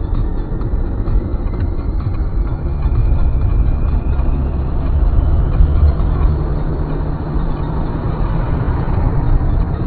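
Steady low rumble of a moving road vehicle, engine and road noise together, growing a little louder about three seconds in.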